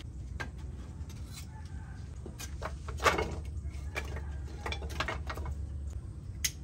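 Sticks of dry split firewood knocking and clattering as they are pulled from a woodpile and laid in a clay stove, with the loudest knock a little after three seconds in.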